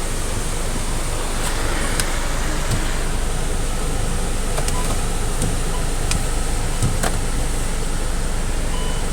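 Steady rushing noise of wind and water, with a low buffeting rumble on the microphone and a few faint clicks.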